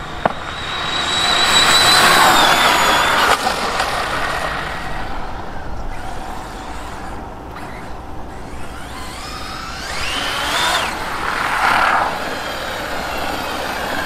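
High whine of a ZD Racing EX07 1/7-scale electric RC supercar's brushless motor and drivetrain on a speed run, loud in the first few seconds and then fading away. Later it whines up again, rising in pitch, and cuts off suddenly.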